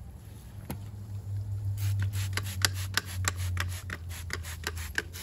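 A hand trigger spray bottle squirting cleaner onto an alloy car wheel: many quick spray pulls in a fast run, about four or five a second, over a low steady hum.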